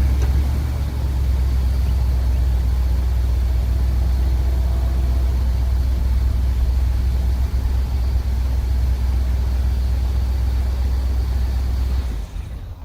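Ford F250's 7.3-litre gas V8 idling steadily with a deep, even low hum, cutting off shortly before the end.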